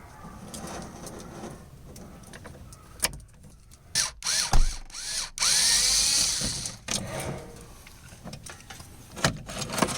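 Electric drill whirring for about a second and a half, drilling out the rivets that hold the window regulator in the door, with knocks and clatter of metal parts just before it.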